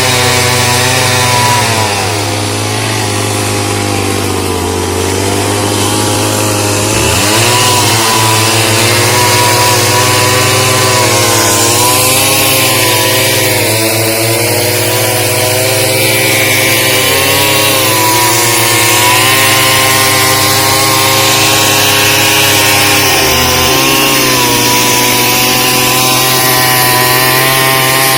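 Chainsaw engine running at high revs, its pitch sagging several times under load as it cuts and climbing back between cuts.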